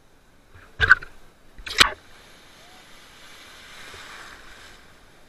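Two sudden, loud splashes of seawater close by, about a second apart, followed by a softer wash of surf that swells and fades.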